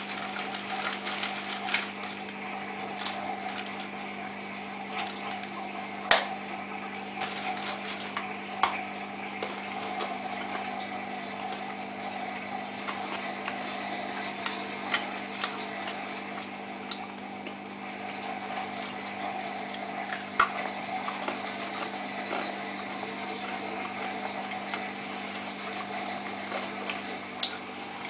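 Samsung WF8804RPA front-loading washing machine's drain pump running at a steady pitch with water rushing through it, emptying the drum ahead of the inter spin, with a few light clicks.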